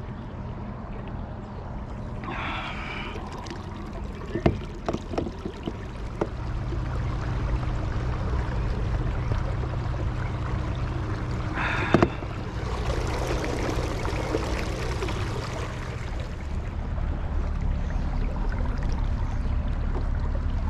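Watersnake T24 electric trolling motor running, with a steady low hum under water rushing and gurgling past the kayak's hull. It grows louder about a third of the way through as the motor moves from low to high speed. A few sharp knocks come early on and one more in the middle.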